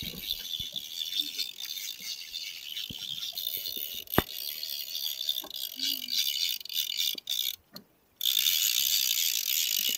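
Fishing reel's ratchet clicker buzzing rapidly as line is pulled off, the sign of a fish taking the bait. A single sharp click about four seconds in, and the sound breaks off briefly around eight seconds.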